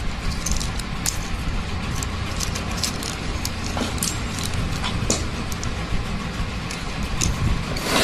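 A wiring harness's plastic connectors and wires being handled, giving scattered small clicks and rattles over a steady low rumble.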